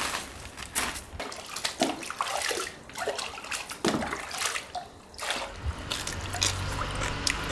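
Water sloshing and splashing in irregular strokes as something is handled in it.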